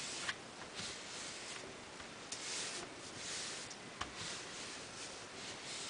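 Hands rubbing and pressing a sheet of cardstock flat onto a glue-coated chipboard piece: faint, repeated swishing strokes of skin and paper, with a small click twice.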